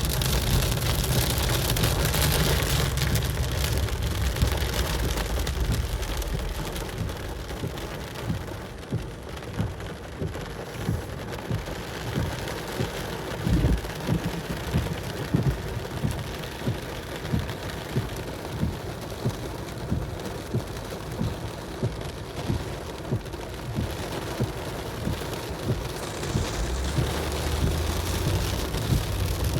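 Heavy rain on a car during a thunderstorm, with thunder rumbling for the first several seconds and then dying away. After that the rain carries on steadily with regular knocks, about one and a half a second, and a low rumble comes back near the end.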